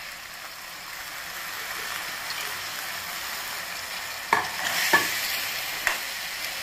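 Onions, potatoes and tomatoes frying with a steady sizzle in a stainless steel kadhai. Sprouted moth beans are stirred in with a steel spoon, which clinks sharply against the pan a few times after the halfway point.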